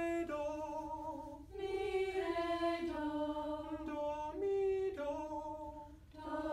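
Unaccompanied singing of short solfège note patterns (do-re-mi style) in call and response: a leader sings a pattern and a group of voices echoes it. Held notes step up and down in pitch, with short breaks about a second and a half in and again near the end.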